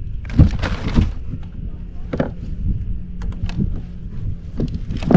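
Knocks and rattles against a plastic fishing kayak while a caught trout is unhooked with pliers, with a louder scuffle about half a second in, over a steady low rumble.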